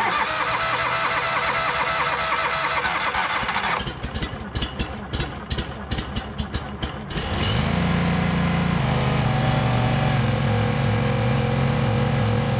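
Barreto 30SG stump grinder's 31-horsepower gas engine being started on its electric starter: it turns over, runs unevenly for a few seconds, then catches about seven seconds in and settles into a steady warm-up run.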